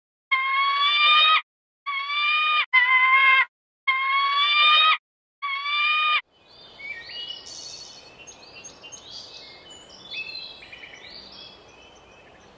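Common kestrel giving five drawn-out, slightly rising whining calls, each about a second long with short silent gaps between them. About six seconds in they give way to small birds chirping and twittering over a soft outdoor hiss.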